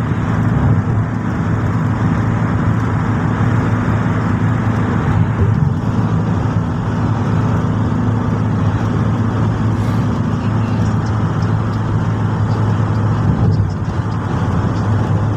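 Steady drone of a car driving at highway speed, heard inside the cabin: a constant low hum under even road noise.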